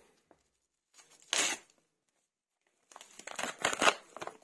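Yellow plastic courier mailer being slit and torn open: a short rip about a second and a half in, then a longer stretch of tearing and crinkling plastic near the end.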